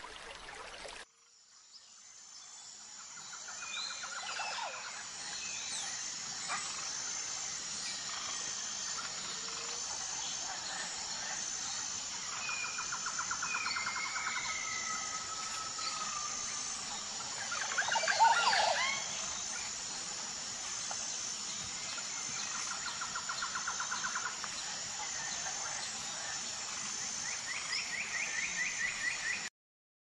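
Birdsong ambience: repeated short trills and whistling calls over a steady high-pitched buzz that pulses regularly, with one louder, harsher burst of calls about 18 seconds in. It opens with a second of running water, then cuts to the birdsong, which fades in and cuts off suddenly just before the end.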